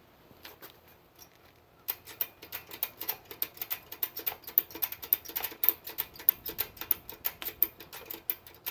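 Ratchet tie-down strap being cranked to compress a motorcycle shock's coil spring: a quick run of sharp clicks, several a second, starting about two seconds in and continuing to the end.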